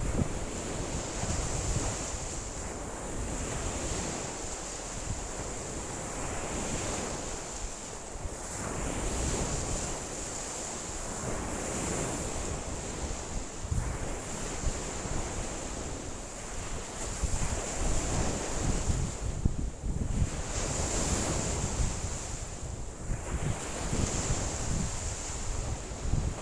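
Lake waves washing and breaking on the shore in a strong wind, the surge rising and falling every few seconds, with wind buffeting the microphone in low rumbling gusts.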